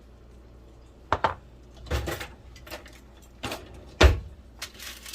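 Kitchen handling noises: a handful of separate knocks and clinks of utensils and dishes being moved and set down, starting about a second in, with the loudest knock about four seconds in.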